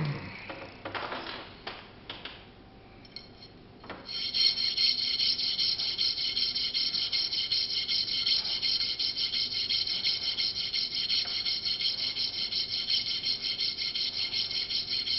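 A metal crush washer being rubbed back and forth along a long flat file, giving a steady rasp in quick, even strokes from about four seconds in. Before that there is a knock and some handling noise as the file is laid down.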